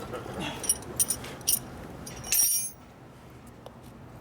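Small metal objects clinking several times, then a short metallic jangle about two and a half seconds in, like keys or hand tools being handled.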